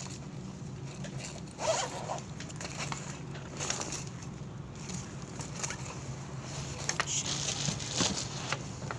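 Zipper on a sling bag being pulled in short strokes, with rustling as the bag is handled and a few sharp clicks near the end, over a steady low hum.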